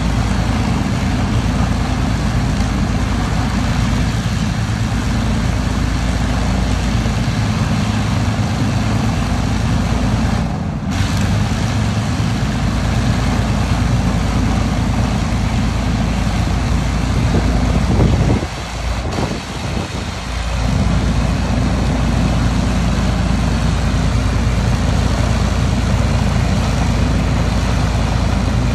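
One Rolls-Royce Merlin V12 engine of an Avro Lancaster bomber running steadily on the ground, with the other three engines stopped: a deep, even engine drone, with a short drop in level about two-thirds of the way through.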